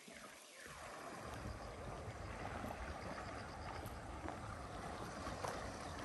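Steady rush of river water flowing, with a low rumble that comes in about a second in.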